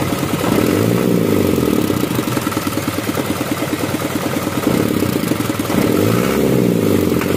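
Isuzu 4HL1 four-cylinder turbo-diesel revving up high and dropping back to idle, twice. The accelerator responds again once the wiring is moved, which points to a wiring fault behind its low power and missing RPM.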